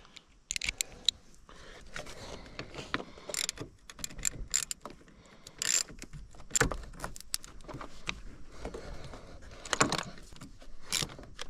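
Irregular metallic clicks and clinks of a wrench working a 10 mm nut as a car battery terminal clamp is fitted and tightened.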